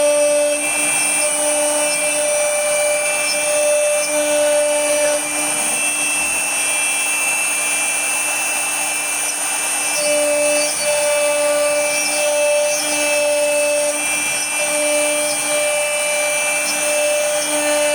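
CNC wood router carving wood: a steady high spindle whine over the noise of the cutter in the wood, with lower motor tones that come and go as the machine moves.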